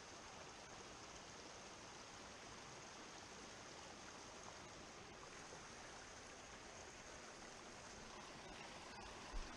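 Small mountain stream running over rocks in small cascades, a faint steady rush of water. A brief knock sounds near the end.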